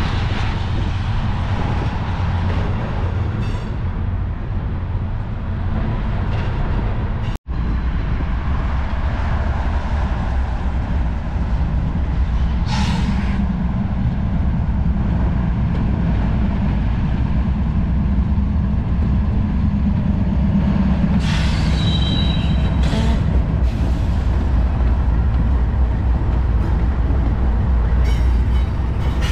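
Freight train of tank cars rolling past with a steady low rumble of wheels on rail. After a short break about a quarter of the way in, a Norfolk Southern diesel-electric locomotive approaches and passes with a steady engine drone. Brief high wheel squeals come a little past the middle.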